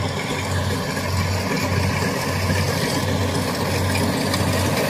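Kubota combine harvester running steadily while cutting rice, a continuous engine drone with a low hum.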